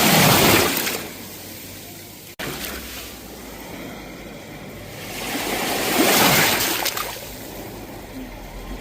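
Sea waves breaking and washing onto the shore: two surges of rushing surf, one at the start and another about six seconds in, easing off between them. A split-second gap in the sound comes about two and a half seconds in.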